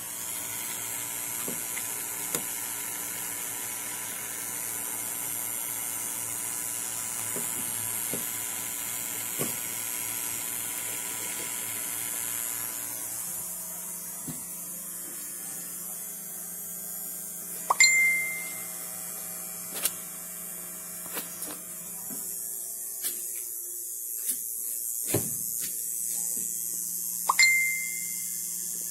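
A steady low hum with a high hiss over it, broken by scattered clicks and two short high beeps, the first about two-thirds of the way in and the second near the end.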